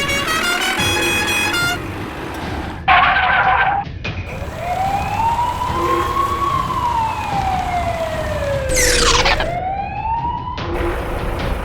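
A siren wailing once, rising slowly in pitch and then falling, over a low engine rumble. It follows a short run of musical notes at the start, and a fast falling swoosh comes near the end.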